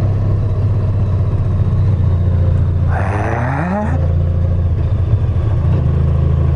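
Honda VFR1200X's V4 engine running steadily under the rider at low road speed, with a brief voice heard about three seconds in.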